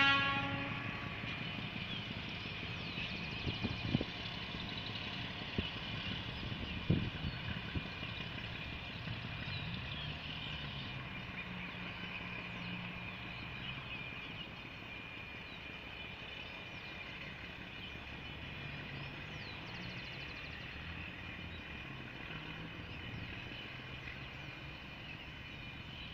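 ALCo RSD39 diesel locomotive pulling a train away, its engine rumbling steadily and slowly fading as it recedes. A horn blast cuts off about half a second in, and a couple of sharp knocks come at about four and seven seconds.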